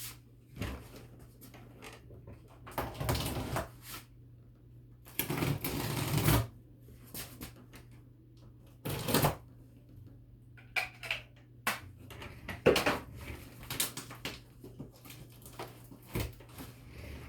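Cardboard shipping box and packing being opened and handled: irregular rustling and scraping, the longest stretch about five seconds in, with many short clicks and knocks in the second half.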